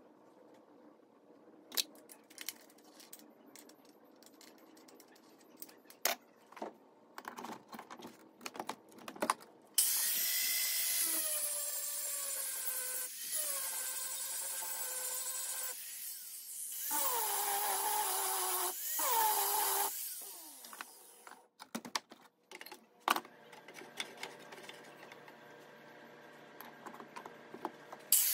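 Angle grinder grinding bevels into a rebar steel knife blade clamped in a vise. Its whine sags in pitch each time the wheel bites into the steel and recovers when it eases off. It runs for about ten seconds after some scattered clicks and knocks.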